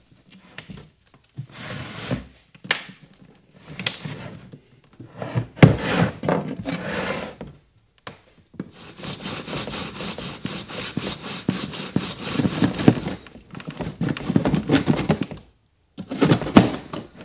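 Hand saw cutting into the plastic case of a 12 V LiFePO4 battery in quick, even back-and-forth strokes, which take up most of the second half. Before that come knocks and thuds as the battery's strap is slid off and the battery is handled.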